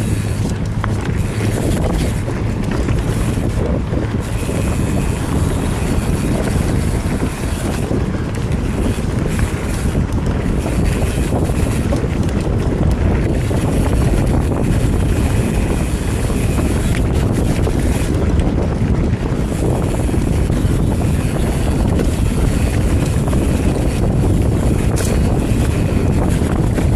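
Steady, loud wind noise on the microphone over the tyre and trail noise of a Commencal Meta TR29 mountain bike riding dirt singletrack.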